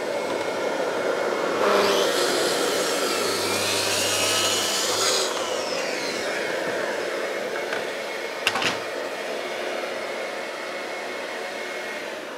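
Dust extractor running steadily through its hose while a plunge track saw cuts along its guide rail through a board from about two to five seconds in, then winds down with a falling whine. A couple of sharp knocks come about eight seconds in, with the extractor still running.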